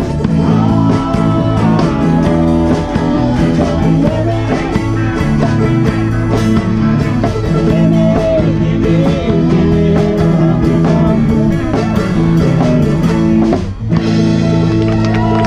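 Live band playing: electric guitar lines bending over bass and drums, with a short break in the music about a second before the end.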